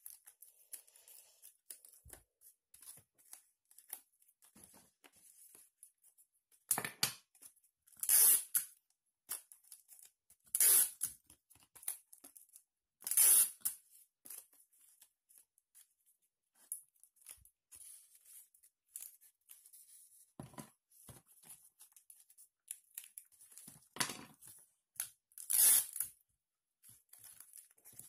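Clear sticky tape pulled and torn off a desk tape dispenser several times, each strip about half a second long, with faint handling of cardboard and tools in between.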